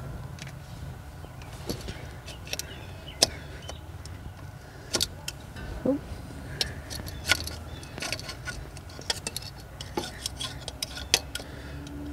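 Razor blade scraping old gasket residue off the thermostat mating surface of a Jeep 4.0L inline-six: irregular short scrapes and clicks of steel on metal, over a low steady hum.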